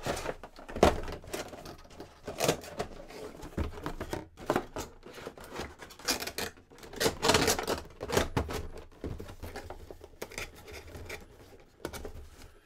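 Cardboard and plastic packaging of boxed vinyl figures being handled: irregular rustles, scrapes and light clicks throughout, with a few sharper knocks.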